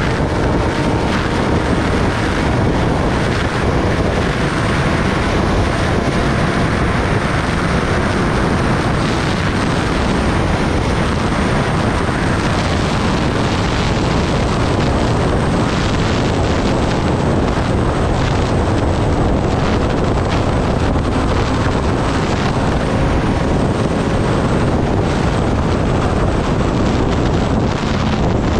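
Kawasaki Ninja ZX-10R's inline-four engine running at a steady speed, buried under heavy wind rush on the microphone.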